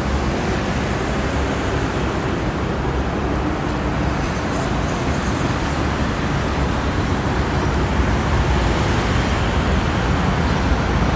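Steady road traffic noise, with most of its weight in the low range.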